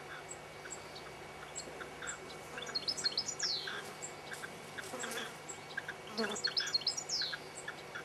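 European goldfinches singing: two twittering song phrases, each ending in a falling note, about three seconds apart, over a steady run of short chirps.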